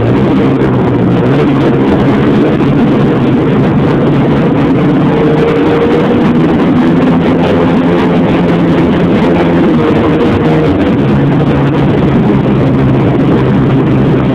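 Snowmobile engine running loud and steady, holding an even pitch at a constant speed.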